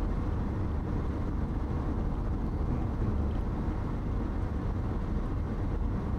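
Steady road noise of a car driving at speed, heard from inside the car: low tyre and engine rumble with no changes.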